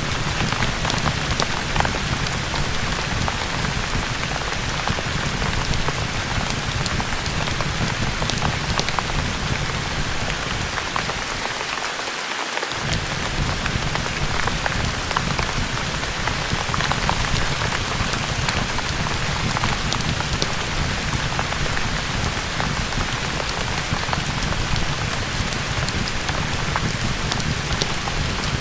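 Steady heavy rain on a surface, with scattered small crackles from a fireplace mixed in. The low rumble of the rain drops out briefly about eleven seconds in.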